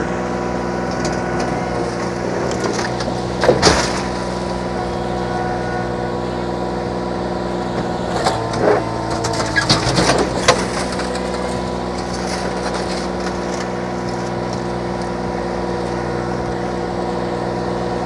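Kubota diesel engine of a stand-on skid steer running steadily at half throttle while its bucket pushes a wrecked car over, with crunching and scraping of the crumpled car body about three and a half seconds in and again in a longer stretch around eight to ten seconds in.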